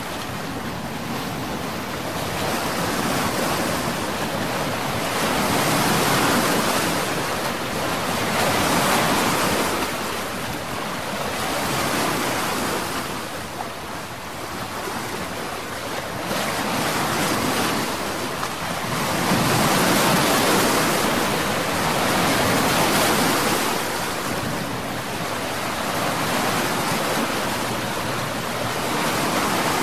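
Sea surf: waves washing and breaking in a steady hiss that swells and ebbs every few seconds, with no engine or tone in it.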